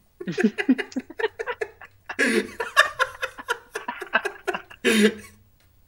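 Two men laughing hard in quick, breathy bursts, dying down near the end with one last burst of laughter.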